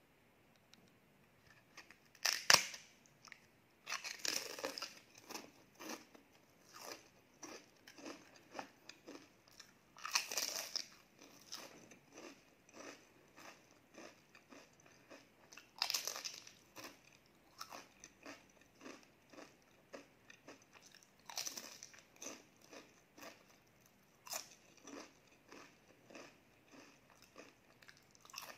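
Crunching bites into a large, thin, crisp cracker, with chewing in between. The loudest bite comes about two seconds in, and further crunchy bites follow every five or six seconds.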